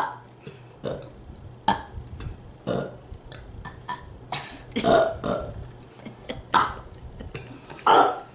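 Two people trading short burps one after another, a burp roughly every second, some louder and some fainter.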